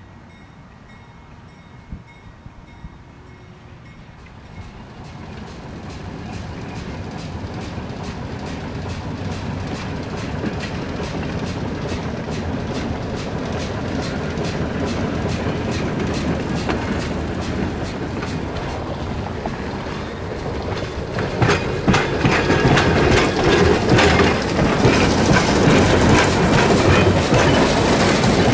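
Great Northern Alco S1 switcher No. 11, with its six-cylinder McIntosh & Seymour 539 diesel, approaching; the sound grows steadily louder from about four seconds in. Over the last several seconds, the loudest part, rapid clicking of wheels over rail joints joins the engine sound.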